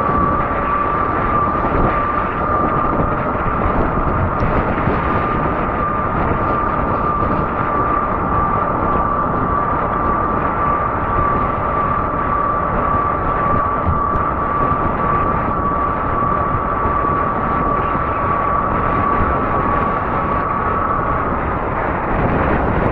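Fat-tire e-bike in motion: a steady high whine over wind rushing on the microphone. The whine stops shortly before the end while the wind noise goes on.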